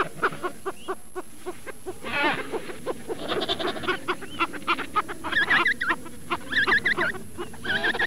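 Penguins calling: a rapid string of short, pitched squawks from several birds overlapping, with quick runs of repeated chirping notes in the second half.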